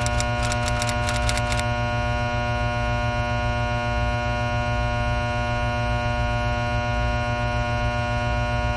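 A steady electrical hum or buzz with many overtones. A quick run of crackling clicks sits over it in the first second and a half.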